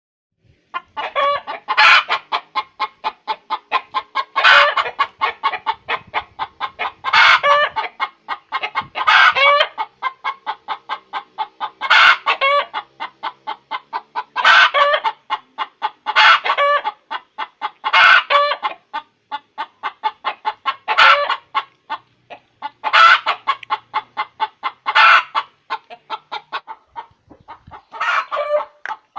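Domestic hen's egg-laying cackle: rapid runs of short clucks broken every two to three seconds by a louder drawn-out squawk, repeated about a dozen times. This is the 'egg song' a hen sings around laying an egg.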